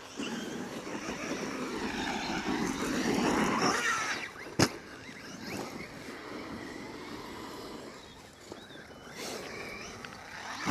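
MJX Hyper Go 10208 V2 RC truck's electric motor whining up and down in pitch as it is throttled on and off, over tyres churning dirt, with one sharp knock about four and a half seconds in.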